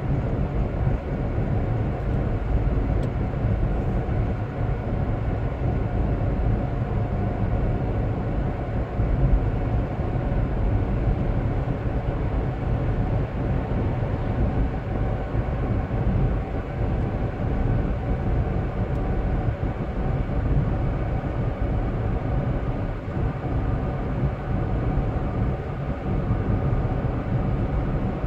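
Steady drone of a car moving at speed on a highway: engine and tyre noise, with a faint steady hum.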